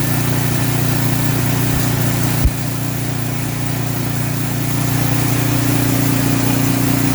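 Snowblower engine running steadily on its freshly repaired carburetor, with a single sharp knock about two and a half seconds in.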